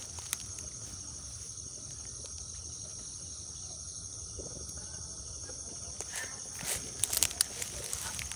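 Night insects trilling steadily at a high pitch, with dry grass and leaves rustling and crackling as someone moves through undergrowth, the crackles loudest about six to seven and a half seconds in.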